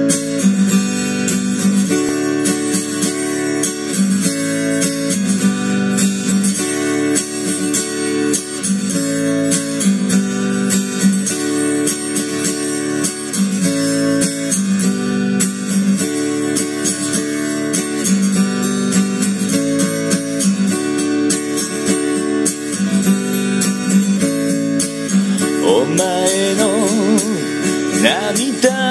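Steel-string acoustic guitar strumming chords in a steady rhythm, cycling through a D–A–G–D progression. A voice begins singing about three seconds before the end.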